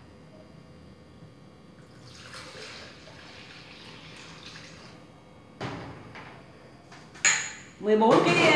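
Milk and yogurt-starter mixture pouring from a bowl into a plastic pitcher, a soft steady splashing, then a knock and a sharp clink of small glass jars near the end.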